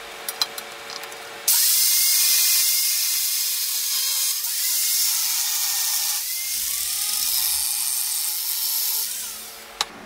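Angle grinder with a thin cut-off disc cutting through steel flat bar: it starts suddenly about a second and a half in after a few light handling clicks, and keeps up a loud, hissing cut with a motor whine that dips a few times as the disc bites. It winds down near the end as the bar is cut through.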